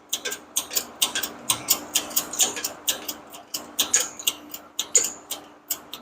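A quick, uneven run of sharp metallic clicks, about four or five a second, from hand work on a clutch assembly, over a faint steady hum.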